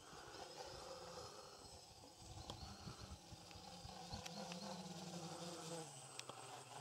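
Faint, steady buzzing hum of a distant radio-controlled model aircraft's electric motor and propeller.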